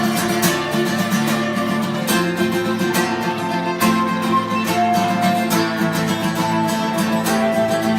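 Live acoustic guitar playing an instrumental break between sung verses, strummed in a steady rhythm with held higher notes ringing over it.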